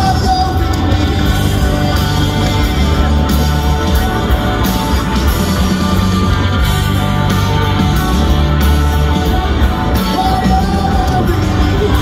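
Live rock band playing loud, with electric guitars and a male lead vocal over a heavy low end, recorded from the audience.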